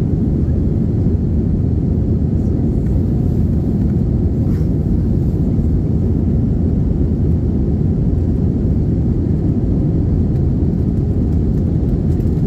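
Steady low roar of a Wizz Air Airbus A320-family jet, as heard inside the passenger cabin: engine and airflow noise while the airliner climbs out above the clouds after take-off.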